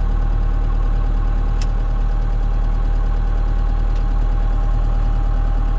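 International 685XL tractor's diesel engine idling steadily, with one brief click about a second and a half in.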